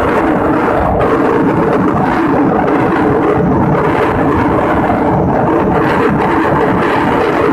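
Steady engine and road noise of a moving vehicle driving along a paved road, with a faint constant hum running under it.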